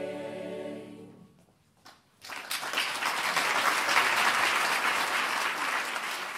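A choir holds its final chord, which fades out about a second in. After a short silence, an audience breaks into applause.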